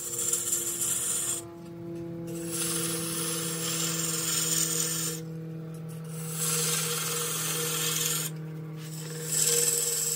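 Spindle gouge cutting a dry tea tree (melaleuca) spindle on a wood lathe: a steady hiss of shavings coming off the wood, broken three times by a pause of about a second in the cut. Under it the lathe motor hums steadily.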